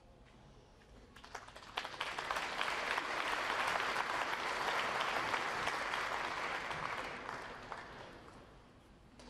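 Snooker arena audience applauding: scattered claps about a second in swell into full applause, then die away near the end.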